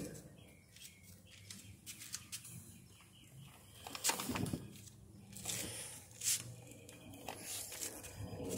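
Faint handling noise from a handheld phone: scattered rustles and small clicks, with brief swishes about four seconds in and again around five and a half to six seconds.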